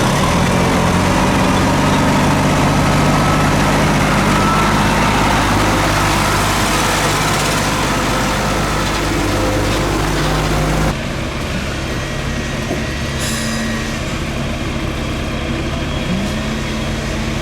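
Heavy diesel engine of a concrete mixer truck running steadily. About 11 s in the sound changes abruptly to a lower, rougher engine note, with a short hiss a couple of seconds later and a brief rise in pitch near the end.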